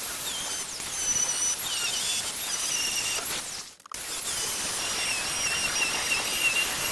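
Corded handheld power tool cutting through a polished stone benchtop slab, a high whine that shifts in pitch as the blade works the cut, with a brief break just past halfway.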